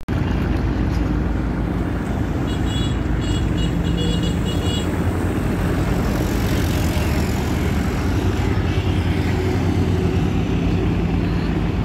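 Steady low engine drone with a rush of water and wind noise as a multi-deck river passenger launch runs past at speed. A run of short high-pitched tones sounds between about two and a half and five seconds in.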